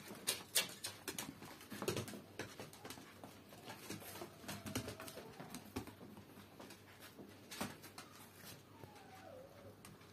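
Several poodles moving about on a tiled floor, their claws clicking and tapping irregularly, with a faint dog whine about four seconds in and another, falling in pitch, near the end.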